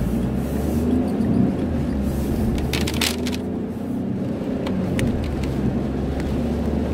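Car cabin noise while driving: a steady low rumble of engine and road, heard from inside the car. A brief cluster of clicks or rustles comes about three seconds in.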